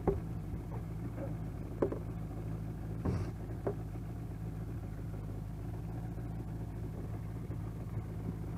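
Boat's outboard motor idling steadily, with a few brief knocks around the boat.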